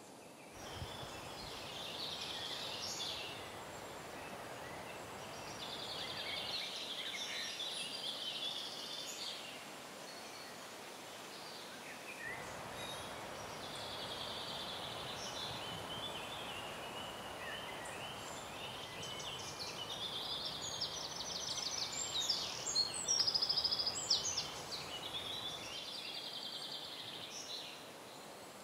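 Small woodland birds singing, with scattered chirps and fast trilling phrases over a steady background rush. A run of fast trills about three quarters of the way through is the loudest part.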